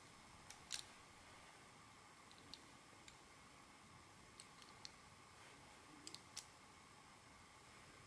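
Near silence broken by a few faint clicks from a spring-loaded hand wire stripper as its jaws clamp and strip an insulated wire. The clearest clicks come about three quarters of a second in and again around six seconds in.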